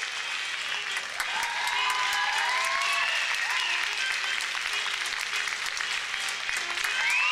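Theatre audience applauding steadily, with voices calling out and cheering over the clapping.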